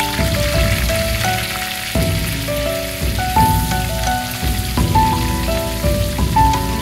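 Butter and minced garlic sizzling in hot oil in a wok, a steady hiss. Background music with a melody of held notes plays over it.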